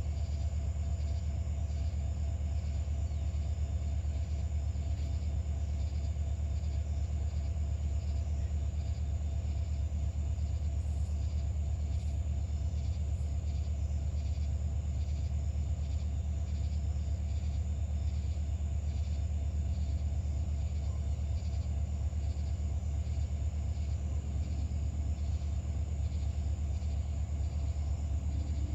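Norfolk Southern SD40-2 diesel-electric locomotives idling: a steady, even low rumble with a faint steady whine above it.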